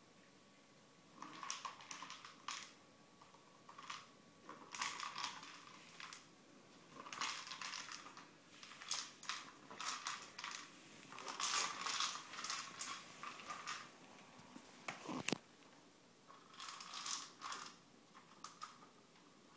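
Hollow plastic treat ball with dry treats inside, rattling as a cat noses it and rolls it across a tiled floor, in short bursts with pauses between. One sharp knock about fifteen seconds in.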